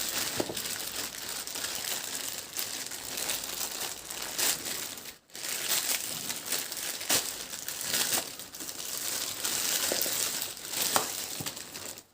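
Packaging crinkling and rustling as a parcel is torn open and unwrapped by hand, with many small sharp crackles; the sound cuts out briefly about five seconds in.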